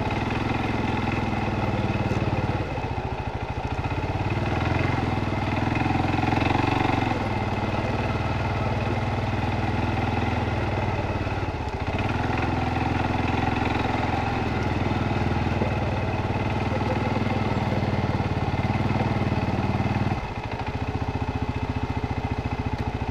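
Single-cylinder ATV engine running at low trail speed, its note rising and falling with the throttle and dropping about twenty seconds in.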